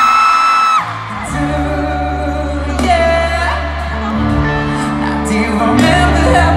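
Live pop performance by a male singer with a band: a high sung note held until it cuts off about a second in, then the band comes in with steady bass notes under further singing.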